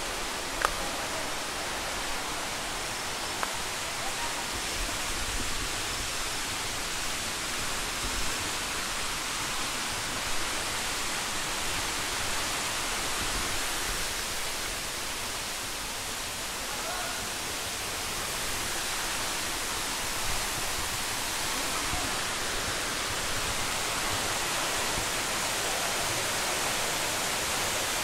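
Waterfall rushing steadily: a dense, even wash of falling water with no letup, with a single sharp click about half a second in.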